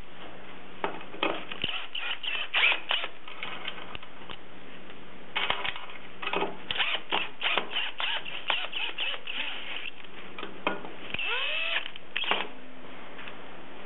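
Cordless drill-driver driving small stainless steel screws into a sheet-metal clasp: two long runs of rapid clicking, then, about eleven seconds in, a short motor whir that rises and falls in pitch, followed by a few clicks.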